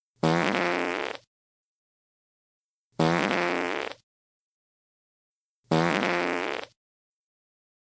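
A fart sound effect played three times: each is a pitched fart about a second long that starts loud and fades. There is dead silence between repeats.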